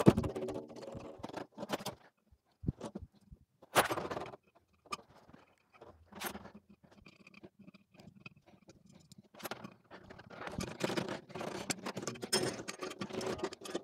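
Thin metal counterpoise radial rods being fitted into the hub of a Xiegu VG-4 vertical antenna's aluminium bottom section: irregular metallic clicks, taps and scrapes, with a few sharper knocks early on and busier small clicking and scraping in the last few seconds.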